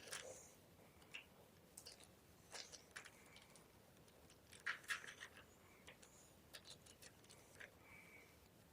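Gym chalk being crunched and crumbled, faint scattered crisp crackles and clicks, with the loudest cluster about five seconds in.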